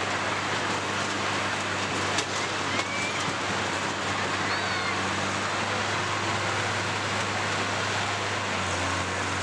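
Combine harvester engines running steadily as the machines shove against one another, with two sharp knocks a little after two seconds and just before three seconds in.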